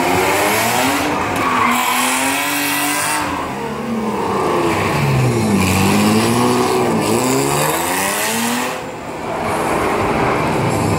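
Stunt car's engine revving up and down again and again as it drives around the arena, with tyres squealing through much of it.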